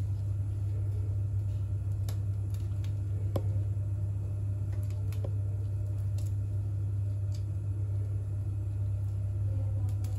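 Steady low machine-like hum with a few faint, scattered ticks.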